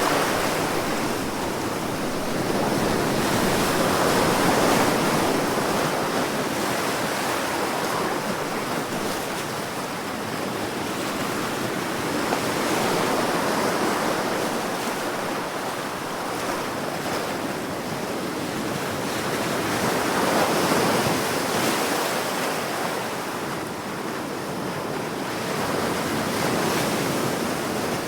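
Ocean waves breaking on the shore, a continuous rushing wash that swells and ebbs every several seconds as each wave comes in.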